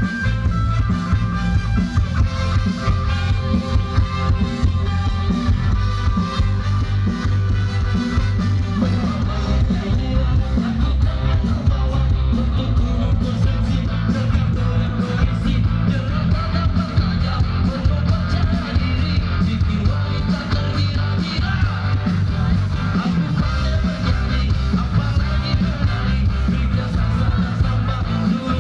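A live band playing through a loud PA system: continuous amplified music with heavy bass and a steady beat.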